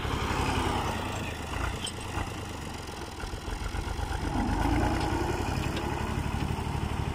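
Fiat tractor's diesel engine running with an even beat as it drags a rear blade through loose sand; the engine note falls off a little after the first second or so and picks up again about two-thirds of the way through.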